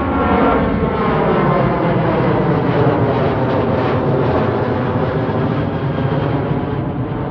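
Southwest Airlines Boeing 737 climbing out overhead after takeoff: a loud, steady jet engine rush with whining tones that fall in pitch as the airliner passes, easing off slightly near the end.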